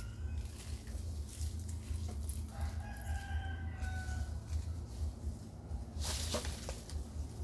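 A rooster crowing once, a single drawn-out call that falls slightly in pitch. Near the end comes a brief rustle of dry leaves.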